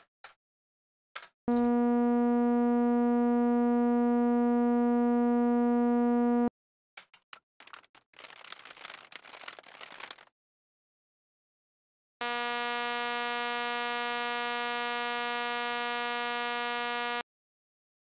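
A 240 Hz sawtooth tone from a software synth, played for about five seconds through a low-pass filter at 800 Hz, so it sounds mellow with its lower harmonics strongest. After a few seconds of computer keyboard typing, the same sawtooth plays for about five seconds through an 800 Hz high-pass filter, quieter and thin and buzzy, its fundamental cut and its upper harmonics strong.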